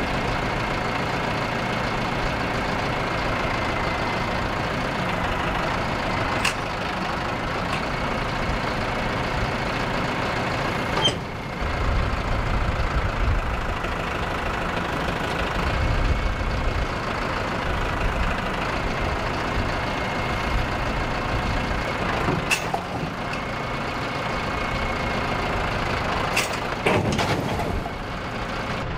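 Heavy equipment engine running steadily under load as the telescoping boom sections are pulled apart, with a handful of sharp metallic knocks. The running grows deeper and louder for a few seconds around the middle.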